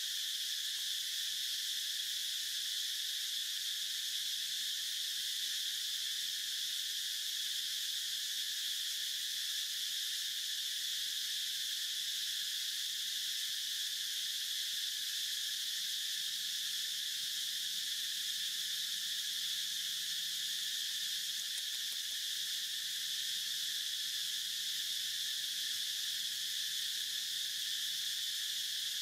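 A chorus of insects droning steadily at a high pitch, unbroken and unchanging.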